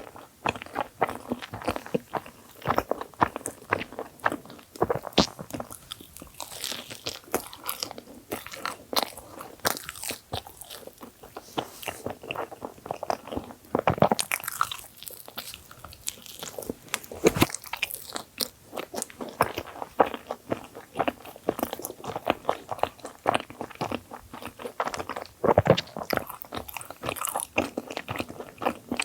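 Close-miked eating of a thick sandwich bagel: repeated bites and chewing with crackly, crunchy mouth sounds, a few bites standing out louder.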